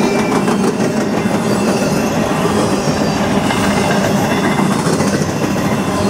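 Double-stack intermodal freight cars passing close by, their steel wheels rolling on the rails in a loud, steady run of noise.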